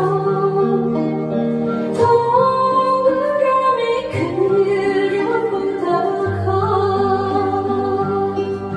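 Woman singing a Korean trot song into a microphone over instrumental accompaniment, holding long notes.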